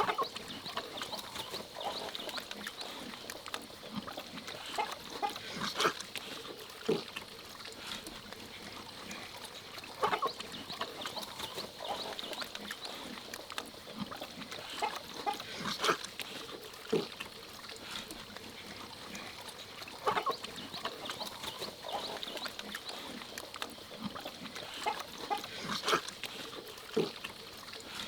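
Farm animals calling: hens clucking among short grunts and squeals, over a steady background hiss.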